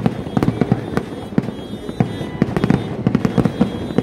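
Kerala vedikkettu fireworks display going off in a dense, irregular barrage: sharp bangs several times a second over a continuous low rumble of explosions.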